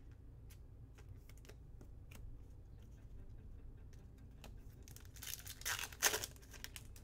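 Faint clicks of trading cards being handled, then about five seconds in a card pack's wrapper tearing open with a short crinkle.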